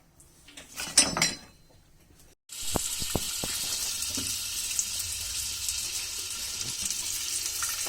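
A sharp clatter about a second in, then butter sizzling steadily on a hot tawa (flat iron griddle), with a few light taps of a utensil.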